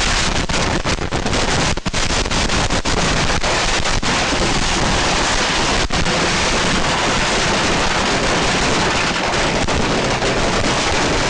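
Backfiring fireworks going off in a loud, continuous barrage of bangs and crackling. The separate sharp bangs of the first few seconds thicken into a dense, unbroken crackle.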